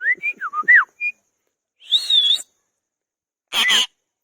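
Indian ringneck parakeet whistling and calling: a quick run of short whistled notes sliding up and down in the first second, then two separate harsher whistled calls, about two and three and a half seconds in.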